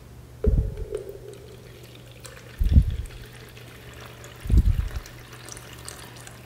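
Basti dravya, an oily herbal enema mixture, being poured into an enema can, with three dull, low glugs or thuds about two seconds apart over a faint trickle.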